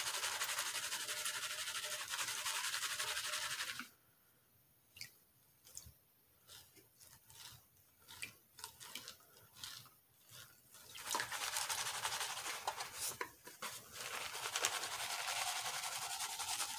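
Water swishing as a plastic gold pan of paydirt is swirled and shaken in a tub of water, the gravel washing around inside it. About four seconds in the swishing stops, leaving only scattered small splashes and drips, and it starts again about eleven seconds in.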